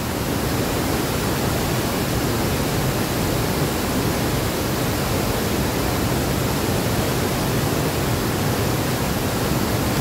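Steady rush of a large waterfall in heavy flow, pouring over the drop.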